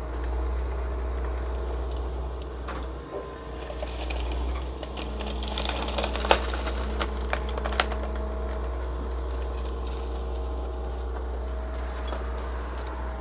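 Excavator engine running steadily while debris is loaded, with a spell of cracking and clattering of broken wood and rubble midway through.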